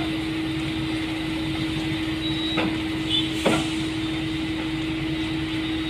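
A motor on the construction site running steadily, with a constant hum over a low rumble, and two sharp knocks about two and a half and three and a half seconds in.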